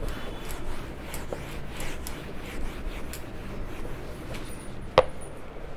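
Duster wiping marker off a whiteboard in repeated rubbing strokes, with one sharp knock about five seconds in.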